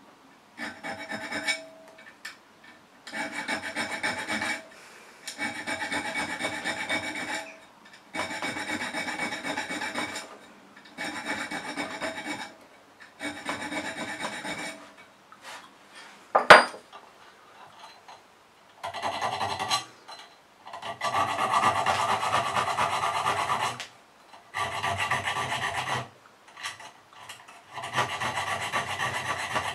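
Small hand file rasping across the steel spine of a knife, cutting decorative notches, in repeated runs of strokes a second or two long with short pauses between. A single sharp click about halfway through.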